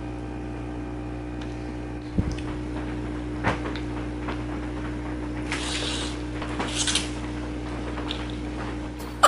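Chopsticks clicking lightly against a plastic bowl, then two slurps of noodles past the middle, over a steady electrical hum.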